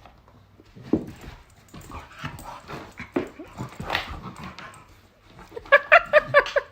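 A dog whimpering and yipping, ending in a quick run of short high yips near the end.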